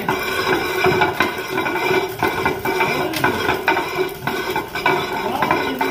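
Hand-turned stone quern (chakki) grinding: the upper millstone is turned against the lower by its wooden handle, a continuous grinding rasp with irregular clicks and knocks, as pulses are cracked into dal.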